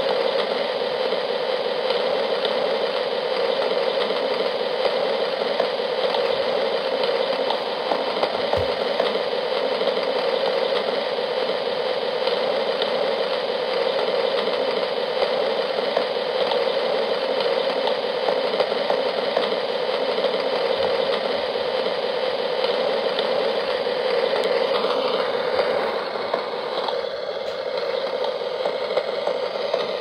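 Steady rain falling, a dense unbroken patter of drops; about 26 seconds in it becomes a little quieter and its texture changes.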